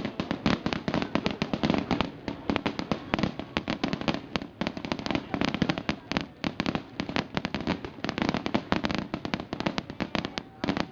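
Fireworks display: a dense, rapid crackle of many small bangs, several a second, going on without a break.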